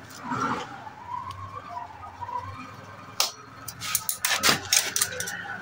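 Sharp metal clicks and knocks, mostly in the second half, as a piston fitted with rings is worked by hand into the finned cylinder of a 4 hp CD single-cylinder diesel engine. A wavering tone drifts through the first couple of seconds over a low steady background hum.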